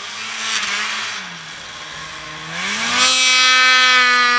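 Snowmobile engine working through deep powder. The revs sag, then climb sharply about two-thirds of the way in and are held high.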